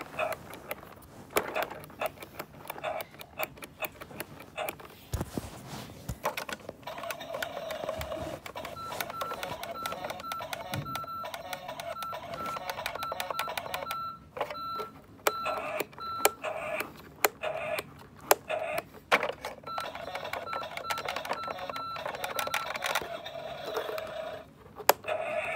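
A truck's dashboard warning chime beeping at one steady pitch, about one and a half beeps a second, in two runs of several seconds, over many sharp clicks.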